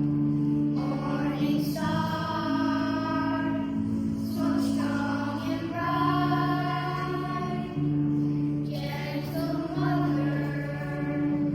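Children's choir singing a slow hymn, with long held notes over a sustained low accompaniment.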